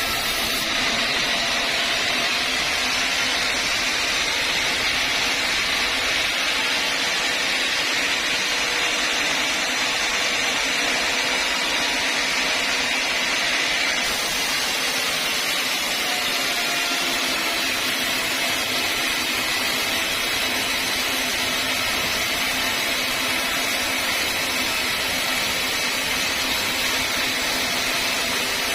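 Sawmill saw running steadily: a continuous machine noise with a hiss, unbroken throughout.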